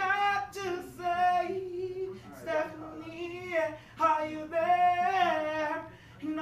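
A man singing unaccompanied in a high voice, holding long notes in phrases with short breaks between them.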